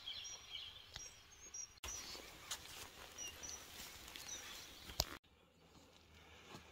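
Faint outdoor ambience with scattered short bird chirps, and a few light clicks, the sharpest about five seconds in.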